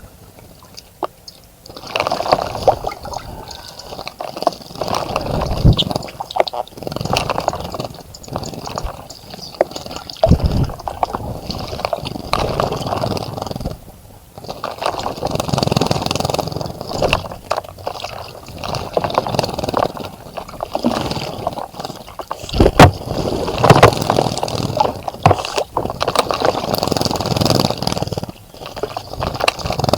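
A bird bathing in a birdbath close to the microphone, splashing and fluttering in the water in repeated irregular bursts, starting about two seconds in.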